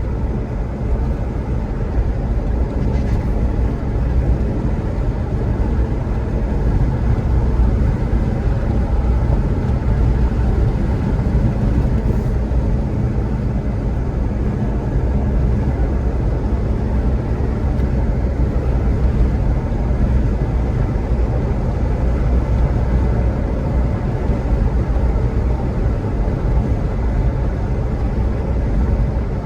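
A vehicle driving at road speed, heard from inside the cabin: a steady, unbroken rumble of engine and tyres.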